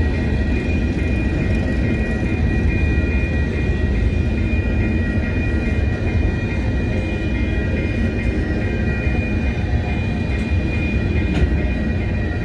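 Freight train of covered hopper cars rolling past, its wheels giving a steady rumble on the rails with a steady high-pitched tone above it. A single clank sounds near the end.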